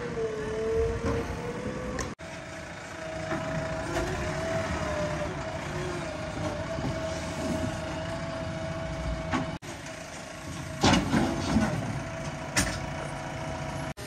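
JCB 3DX backhoe loader's diesel engine running steadily with a whine that wavers slightly in pitch. A cluster of loud knocks about eleven seconds in and another knock near the end are the loudest moments. The sound drops out for an instant twice.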